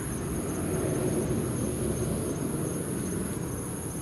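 Crickets trilling steadily in high continuous bands, over a low rushing noise that swells a little about a second in.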